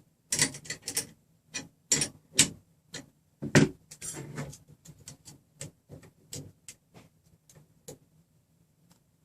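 Irregular sharp metallic clicks and ticks from a wrench turning nuts on the threaded-rod frame and from a digital caliper being handled during adjustment. The clicks are loudest in the first four seconds and thin out near the end.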